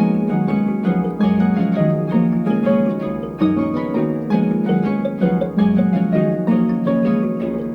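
Instrumental harp music: a continuous flow of plucked notes that ring and fade over sustained low bass notes.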